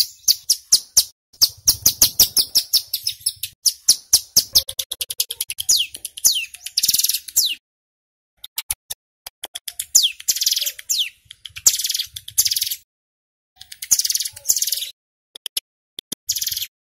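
Male hill prinia (ciblek gunung) singing: bouts of rapid, high, sharp notes, some sliding downward, and dense buzzing trills (the 'ngebren' rattle), broken by a couple of short pauses.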